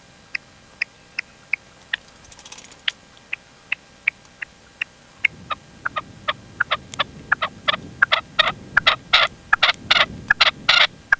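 Red-legged partridge calling: a run of short clipped notes, spaced out at first, then coming faster and louder from about five seconds in.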